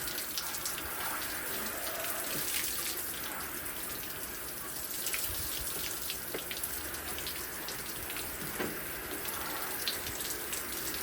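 Water running steadily from a tap, splashing, with small knocks and splashes as hands and a bucket are rinsed under it.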